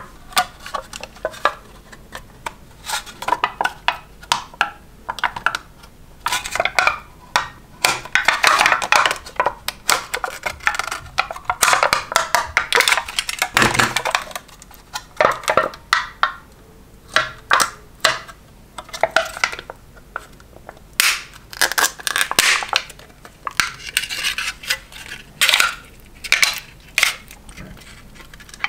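Thin plastic jelly cups being squeezed and their lids and plastic peeled off: dense, irregular crinkling and crackling of the plastic, with sharp clicks and taps against the table.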